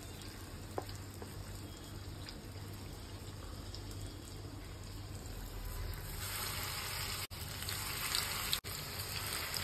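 Batter-coated paneer pakodas sizzling and crackling in hot oil in a frying pan, starting about six seconds in. Before that, a quieter stretch of a spoon moving through thick gram-flour batter, with one light click.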